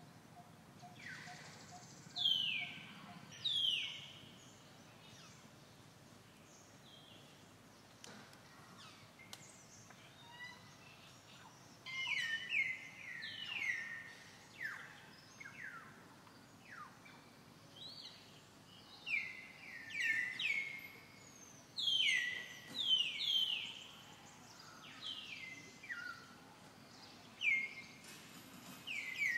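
Birds calling in the trees: short whistled notes that drop in pitch, coming in quick runs of several notes with quieter gaps between, over faint outdoor background noise.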